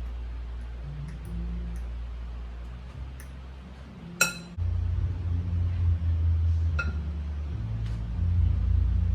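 Kitchenware clinking: a few light ticks and one sharp ringing clink about four seconds in, with a smaller ring near seven seconds, over a steady low rumble that gets louder just after the main clink.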